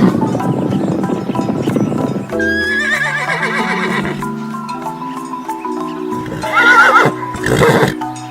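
Background music with held notes, over animal sounds: a rough, noisy stretch at first, then a high, wavering animal call about two and a half seconds in and again near the end, followed by a loud noisy burst.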